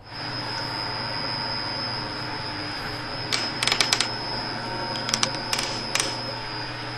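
Sharp clicks and clinks as an aluminium oil cap is fitted into a lathe's steel chuck jaws and gripped with pliers, in two short clusters about three and a half and five and a half seconds in, over a steady hum.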